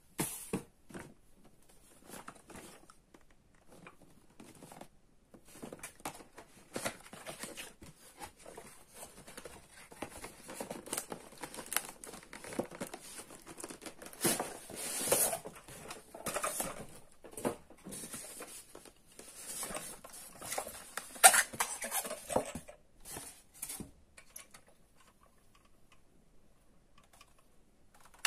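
A cardboard box and its packaging being handled and opened by hand: irregular rustling, crinkling and tearing with small knocks and clicks. The loudest is a sharp snap a little past the two-thirds mark, and the handling stops a few seconds before the end.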